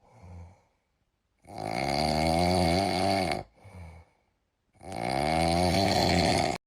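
Snoring sound effect: two long snores a few seconds apart, each with a short faint breath before it and each sinking in pitch as it ends.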